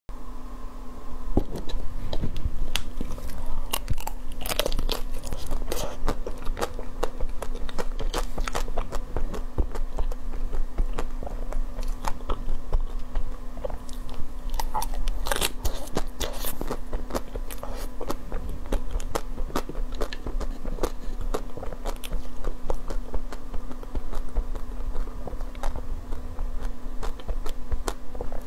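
Crunching and chewing of chocolate-coated ice cream: the hard chocolate shell cracks into many sharp crackles with each bite, and chewing goes on between bites.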